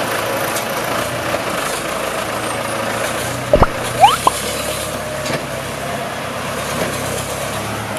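Ford New Holland 6610 tractor's four-cylinder diesel engine running steadily as the tractor moves slowly, with a few short, sharp rising squeals about halfway through.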